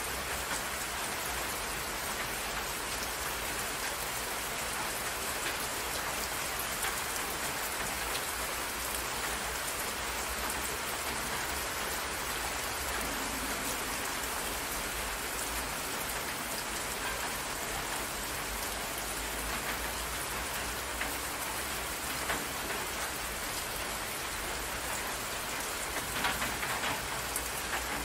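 Steady rain falling, drops splashing on a water surface, with a few louder splashes near the end.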